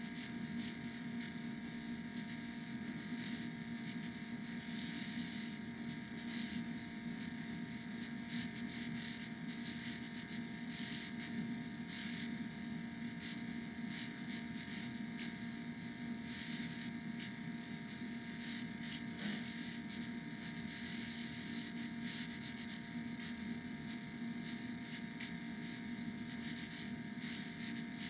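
Steady mechanical whirring noise with a constant low hum and a high hiss, finely textured with rapid tiny clicks; the hum tones change just as it ends.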